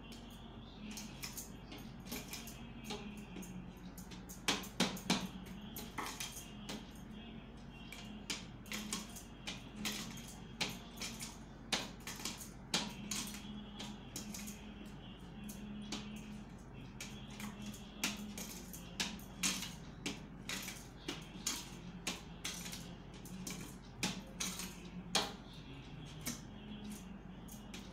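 Dough of turmeric and flour being kneaded by hand on a brass plate: irregular light clicks and clinks of the metal plate, some a little louder, over a steady low hum.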